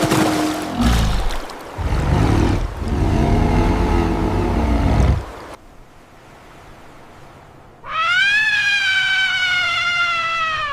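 Two animal calls in turn. First comes a loud, low, rough call lasting about five seconds. After a short pause, one long, clear cry of nearly three seconds follows, falling slightly in pitch.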